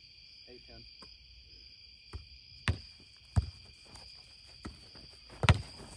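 Sharp smacks of a ball rally: hands striking the ball and the ball hitting the board, five or so at irregular spacing, the loudest about five and a half seconds in. Under them, a steady high-pitched drone of night insects.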